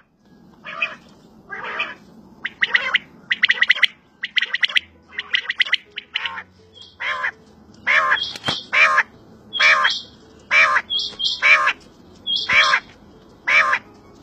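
Quail calling over and over, short sharp calls about one a second, with thinner, higher-pitched notes joining in from about eight seconds in.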